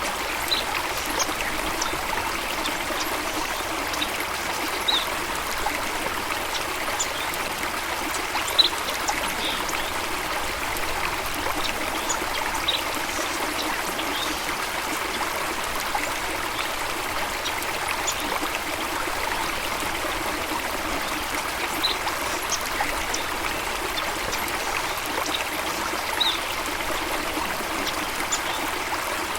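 Steady running water of a stream or small waterfall, with short high-pitched chirps scattered through it.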